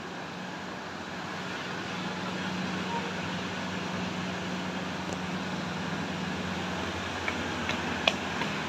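A steady low mechanical hum over a background of noise, with a few sharp clicks near the end.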